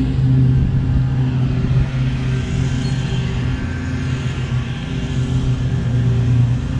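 A machine running steadily nearby: a low, even hum with a few pitched tones that never changes.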